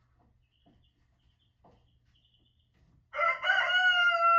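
Rooster crowing: one long cock-a-doodle-doo that starts about three seconds in, its final note held steady, after a few seconds of near quiet.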